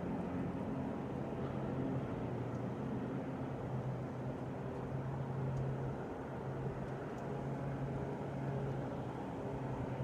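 Lawnmower engine running at a steady speed, a low even drone.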